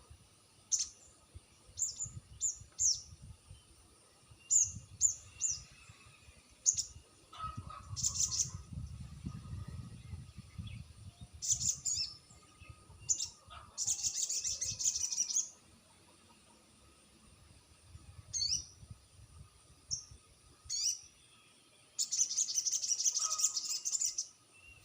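Sogon bird calling in a series of short, sharp high chirps, with two longer bursts of rapid trilling.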